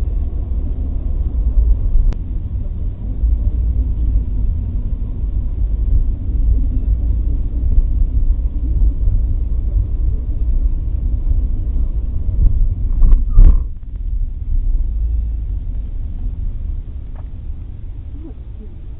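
Steady low rumble of a car's road and engine noise heard inside the cabin through a dash camera's microphone, with one brief louder sound about thirteen seconds in.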